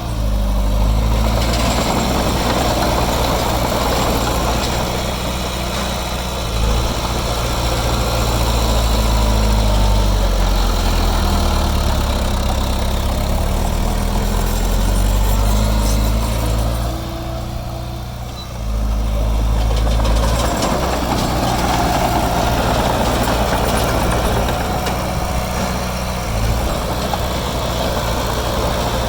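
Heavy diesel engine of earthmoving machinery running steadily, its note rising and falling as the load changes. It eases off briefly a little past halfway, then comes back up sharply.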